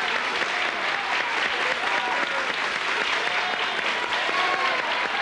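Studio audience clapping steadily, with a few scattered shouts from the crowd.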